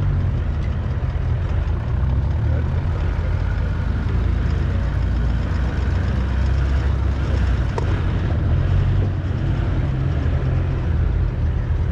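Off-road 4x4 running at low speed on a dirt track, heard from inside the vehicle: a steady, low engine and drivetrain noise with road and body noise over it.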